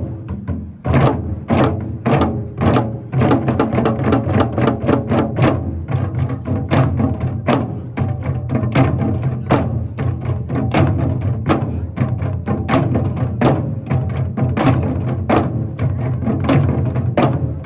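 Korean janggu hourglass drums played in a group performance: a fast, dense rhythm of sharp stick strikes over a steady low sound.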